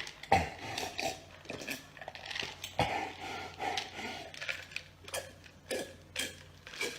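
A person chewing and crunching food noisily, with irregular crunches and mouth sounds.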